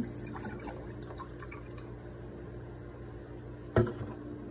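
Water poured into a glass measuring cup, trickling and dripping in short light ticks over the first second or so, with a steady low hum underneath. Near the end comes a single sharp knock, the loudest sound.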